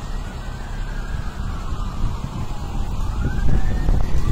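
An emergency-vehicle siren wailing, its pitch sliding slowly down and then back up about three seconds in, over a steady low rumble.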